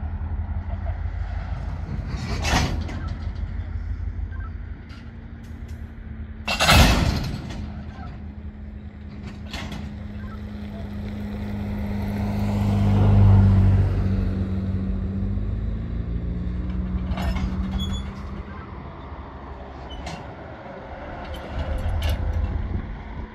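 A slow-moving freight train with a diesel locomotive running. The engine hums steadily and swells to its loudest about thirteen seconds in. Several brief sharp noises come from the train, the loudest about seven seconds in.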